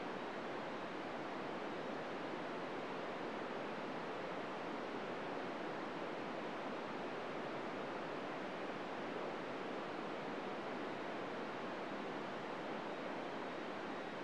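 Amateur 2 m FM receiver tuned to 145.800 MHz giving a steady hiss of open-squelch static, with no SSTV tones in it: the ISS signal is not coming through, only noise.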